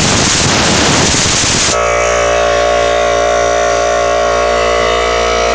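Small conventional air compressor switched on and running loud: a harsh burst of noise for the first couple of seconds, then a steady, loud running drone.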